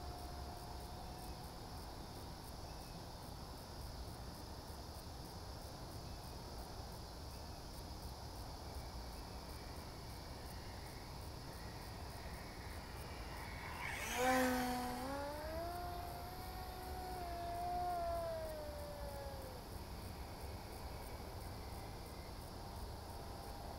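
Insects chirring steadily, with an RC plane's electric motor whine passing a little past halfway. The whine comes in suddenly and loudest, steps up in pitch, then slides slowly down over about five seconds as the plane goes by.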